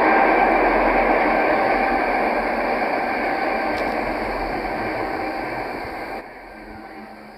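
Steady rushing noise with a few faint steady tones in it, slowly fading, then dropping away sharply about six seconds in.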